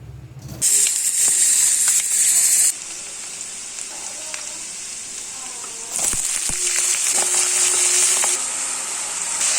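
Food frying in hot oil in a pan: a loud sizzle starting about half a second in, easing after two seconds or so and loud again from about six seconds on.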